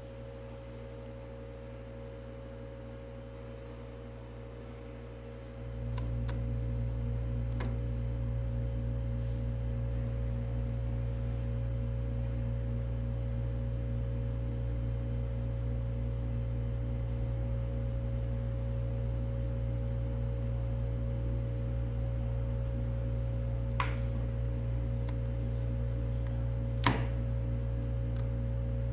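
Steady low hum with a few fixed higher tones over it, stepping up in level about six seconds in. A handful of small sharp clicks sound over it, the loudest near the end.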